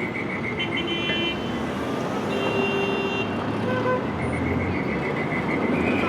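Street traffic noise with brief car horn toots, and a quick pulsing high beep from about four seconds in.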